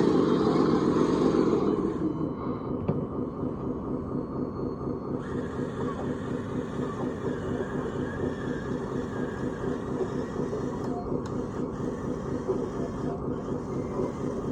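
Radio-controlled model construction machine running. It is louder for the first two seconds, then settles into a steady, quickly pulsing engine-like hum.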